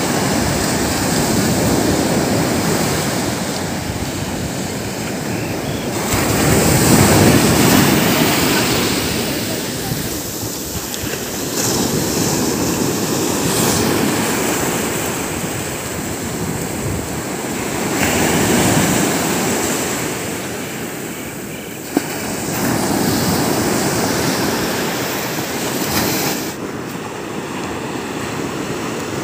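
Sea surf breaking on a sandy beach: the rush and wash of waves, swelling and easing every five or six seconds. One short click about three-quarters of the way through.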